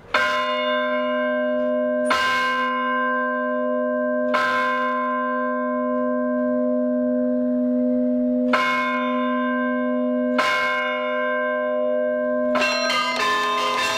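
Tuned bells of a church carillon, worked from a wooden keyboard through steel cables. One bell is struck five times, a few seconds apart, each stroke ringing on, for the daily six o'clock ringing. Near the end a quick run of many different bells begins the tune.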